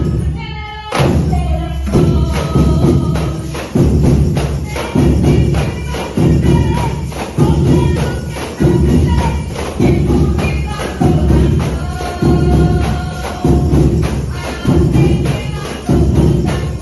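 Percussion band playing a song: deep drum beats in a steady, even pulse, with tambourines jingling over them and a melody above.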